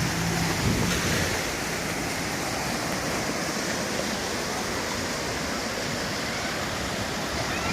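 Sea surf washing steadily onto a sandy beach. A low steady hum fades out in the first second or so.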